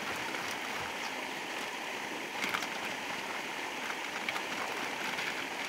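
Steady rushing of flowing water, like a stream or river, with a few faint ticks about halfway through.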